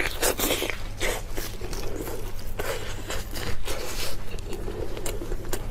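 Close-miked eating: a run of irregular bites, wet chewing and crunchy clicks from a mouth working through food.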